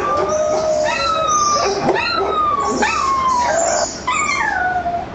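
A dog giving a run of about six high, whining yelps and howls, each cry falling in pitch, roughly one a second.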